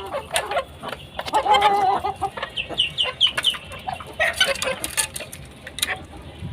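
Chickens clucking, with a louder call about a second and a half in and runs of short, high, falling peeps near the middle.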